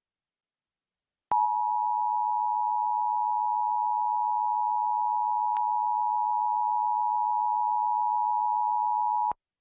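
Emergency Alert System two-tone attention signal, a steady dual-tone alarm sounding for a monthly EAS test. It starts sharply about a second in, holds unchanged for about eight seconds, and cuts off abruptly just before the end.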